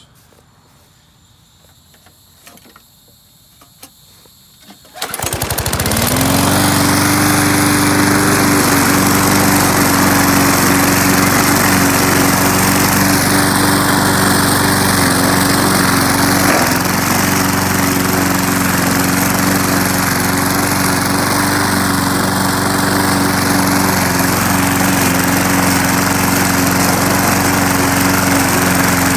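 Small engine of a walk-behind rotary lawnmower, its deck front cut away, starting about five seconds in. Its pitch rises as it comes up to speed, then it runs steadily while mowing tall grass.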